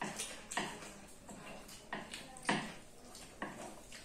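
People slurping chow mein noodles with chopsticks, about five short slurps in four seconds.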